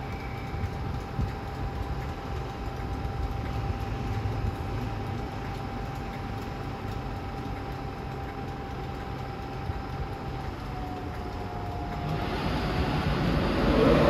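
Class 91 electric locomotive standing in an InterCity 225 train, with a steady low hum and a thin whine that dips slightly in pitch about ten seconds in. Near the end a louder rushing noise builds.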